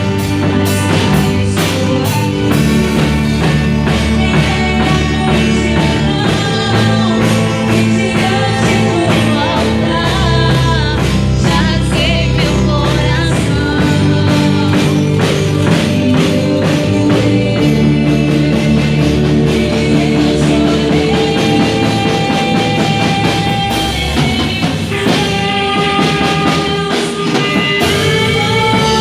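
Worship band playing rock-style music with drum kit and electric guitar, with singing.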